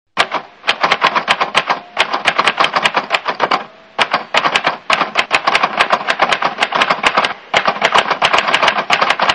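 Rapid typewriter-style key clicking, about eight to ten sharp clicks a second, in runs broken by three short pauses.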